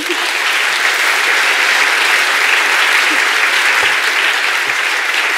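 An audience applauding after a talk, a steady clapping of many hands in a large hall.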